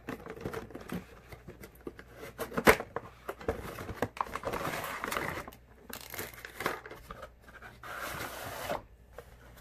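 Cardboard toy box being opened and its clear plastic tray pulled out: scattered clicks and taps, one sharp one about a third of the way in, then longer stretches of rustling packaging about halfway through and again near the end.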